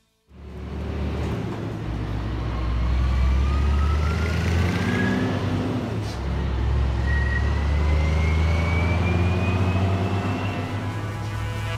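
Fire engine driving toward the camera with its lights flashing, its engine running with a heavy low rumble. Over it, a whine rises slowly twice, the second starting about halfway through.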